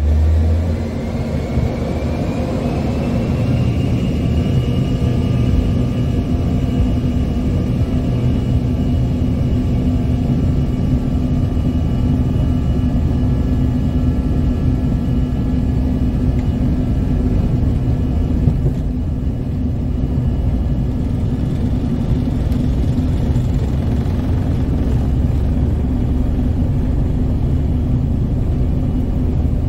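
Embraer ERJ-145's rear-mounted Rolls-Royce AE 3007 turbofan engines heard from inside the cabin, spooling up for the takeoff roll. A whine rises in pitch over the first few seconds and then holds steady over a constant low rumble.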